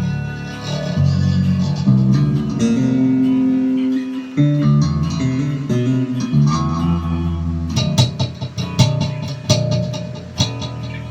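Electric bass guitar played through a small amplifier under test: a line of plucked low notes, then from about eight seconds in sharp slapped and popped notes.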